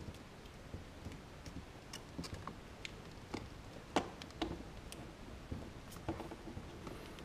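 Irregular small clicks and rattles of plastic ISO wiring-harness connectors and their wires being handled and unclipped by hand, the sharpest click about four seconds in.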